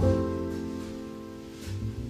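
Instrumental background music: a chord struck at the start that slowly fades, with low bass notes coming in near the end.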